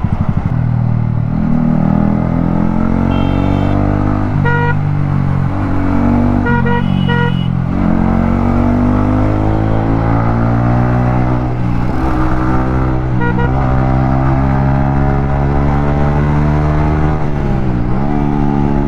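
Yamaha MT-15's 155 cc single-cylinder engine with an Akrapovic exhaust, under way: the engine note climbs through the revs and dips briefly at each gear change. Several short vehicle horn honks sound in the first half.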